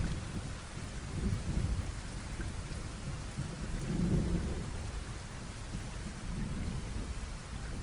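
Steady rain hissing, with a low rumble that swells a few times and is loudest about four seconds in.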